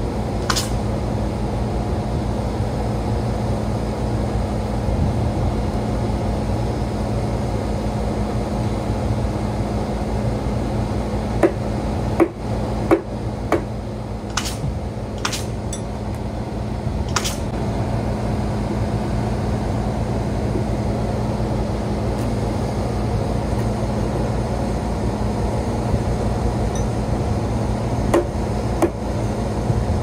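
A steady engine drone runs throughout. A few sharp knocks and clicks come around the middle and again near the end.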